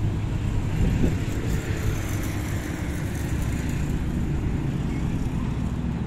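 Steady low rumble of city road traffic, with no single vehicle standing out.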